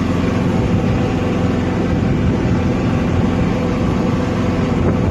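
Golf cart driving along at speed: a steady rumble of motor, tyres and wind.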